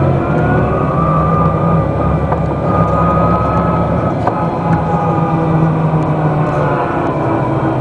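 A 1997 Den Oudsten Alliance B96 city bus heard from inside while under way: its engine and drivetrain run steadily. A whine rises slightly near the start and then holds level.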